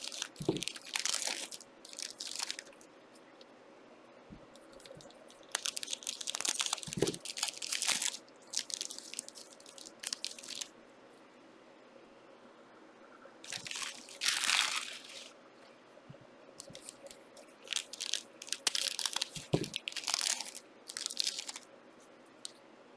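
Trading-card pack wrappers crinkling and tearing open, with cards being handled. It comes in four bouts of a few seconds each, with quieter pauses between them.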